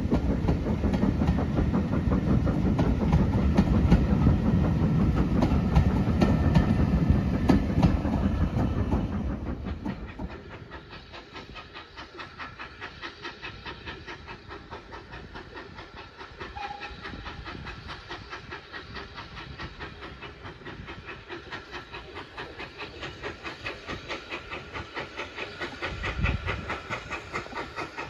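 Railway carriages rolling past, loud, with the wheels clicking over the rail joints, until the sound drops away sharply about nine seconds in. Then comes the steady, quick beat of a steam locomotive's exhaust, quieter at first and growing louder as the engine approaches, with a low thump near the end.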